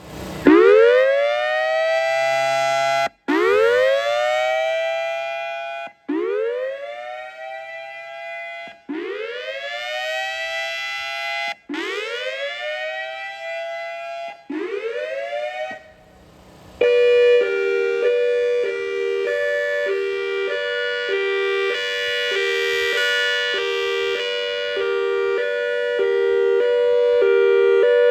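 Electronic outdoor warning siren sounding a whoop tone: six rising sweeps about three seconds apart, each cut off sharply. Past the middle it changes to a hi-lo tone, alternating between two notes a little more than once a second.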